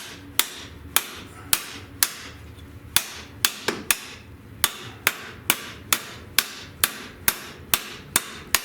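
Hammer striking a sheet-steel patch panel, about two sharp metallic blows a second with a short ring after each, pausing briefly a little over two seconds in. The blows are forming ridges into the new floor piece to match the original floor.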